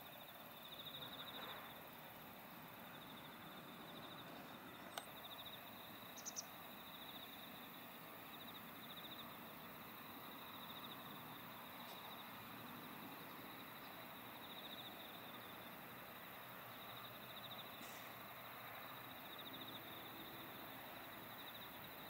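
Faint insect trill: a steady, rapidly pulsing high buzz that keeps on without a break, with a couple of brief ticks about five and six seconds in.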